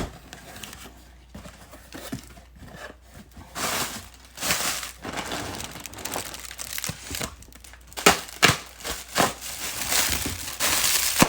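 Packaging on a parcel box being opened by hand: irregular crinkling and tearing, with several sharp snaps and rustles from about eight seconds in.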